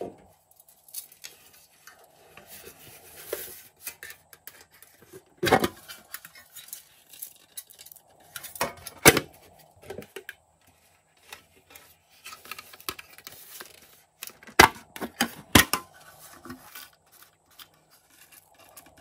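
Sequins and confetti being poured and shaken from small plastic cups onto slime in a glass dish, a light rustle with scattered sharp clicks and taps of the plastic containers, four of them loud.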